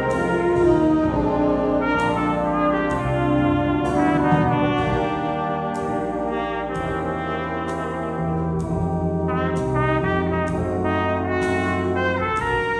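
Trumpet playing a slow melodic solo over a band accompaniment, with a steady beat marked about once a second.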